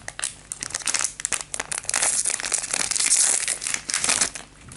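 Foil trading-card booster pack wrapper crinkling as it is torn open: a dense run of crackles, loudest from about two to three and a half seconds in, dying away shortly before the end.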